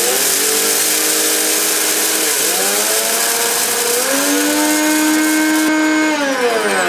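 High-speed Omniblend blender grinding dry pudding rice into fine flour: a loud motor whine over the hiss of the grains in the jar. The pitch dips and then climbs higher about four seconds in, and near the end the motor is switched off and winds down.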